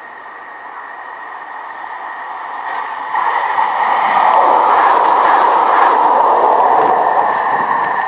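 Manchester Metrolink tram passing on the bridge. Its running noise grows louder through the first few seconds, is loudest past the middle and is just starting to fade at the end, over a steady high ringing tone.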